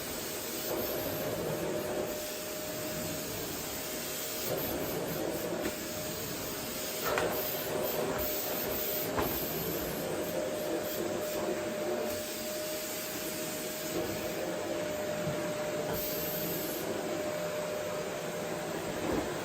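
Vacuum cleaner running steadily on a wooden floor: a hissing rush of air under a steady motor whine, with a few light clicks.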